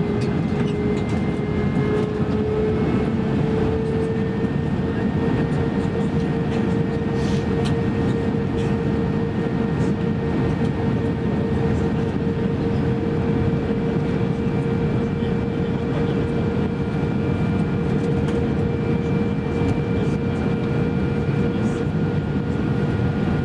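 Cabin noise inside an Airbus A321-231 airliner in flight: a steady roar of airflow and its IAE V2500 jet engines, with a steady engine whine that rises slightly in pitch over the first few seconds and then holds.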